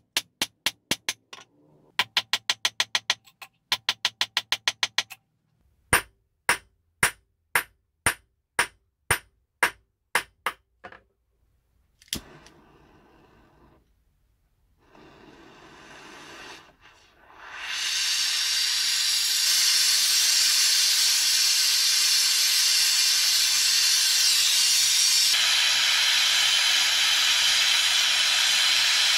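Hammer blows on a 95% silver bar on a small steel bench anvil: fast runs of sharp strikes, then slower blows about two a second, stopping about eleven seconds in. After a few seconds of faint hiss, a jeweller's gas torch flame hisses steadily and loudly as it heats the forged silver strip.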